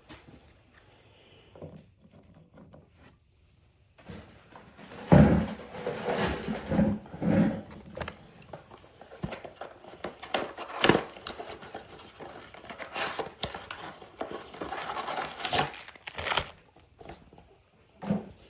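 A cardboard blaster box of baseball cards and its packs being handled and opened: irregular rustling with sharp knocks and clicks, starting about four seconds in and dying down near the end.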